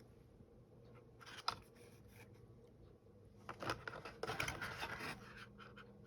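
Hands handling packaging: a short scrape about a second and a half in, then a longer stretch of scraping and rustling from about three and a half seconds to five.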